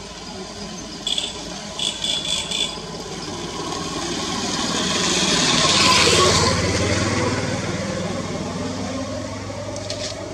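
A motor vehicle passing, its engine noise building to a peak about six seconds in and then fading away. A few short high squeaks come between one and three seconds in.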